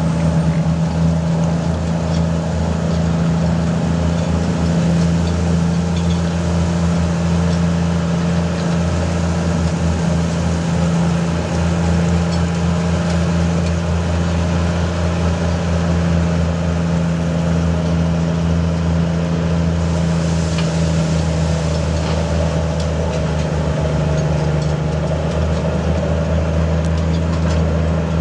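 Heavy diesel engine of a Komatsu D155W bulldozer running steadily at a constant speed.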